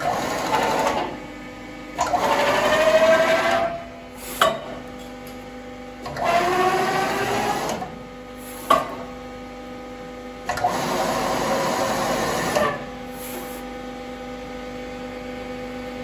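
Powered sheet metal guillotine running with a steady motor hum. It goes through repeated shearing strokes: four times it gives a second or two of loud mechanical grinding with a slowly rising pitch, and sharp clunks come between strokes.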